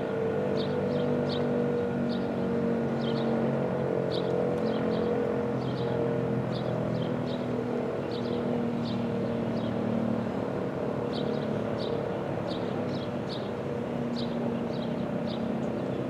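ASC RM-127 outdoor warning siren sounding its steady Alert tone, one held pitch with its overtones. The horn turns on its rotator, so the tone swells and fades a little. Short high chirps sound over it throughout.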